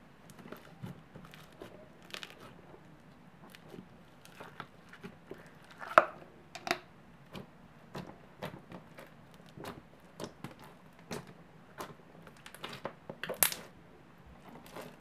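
Floam slime, a glossy slime packed with small foam beads, being poked, squeezed and pressed by hand, giving irregular crackles and pops. The loudest pops come about six seconds in and again near the end.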